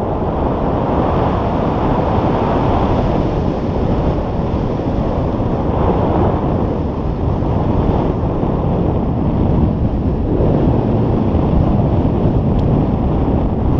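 Wind rushing over the microphone of an action camera on a tandem paraglider in flight, loud and steady, swelling and easing slowly.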